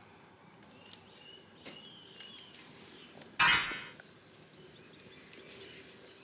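Faint bird chirps over a steady outdoor background, with one loud short rasping sound about three and a half seconds in that fades off quickly.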